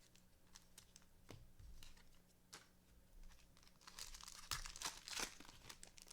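A trading-card pack's foil wrapper being torn open and crinkled, with faint clicks and rustles of cards being handled; the rustling is loudest from about four to five seconds in.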